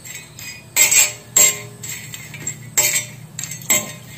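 A steel spoon scraping and clinking against a flat tawa griddle as dried ginger slices and cinnamon pieces are stirred while dry-roasting. There are four sharp metal strokes, some with a short ring, over a faint steady hum.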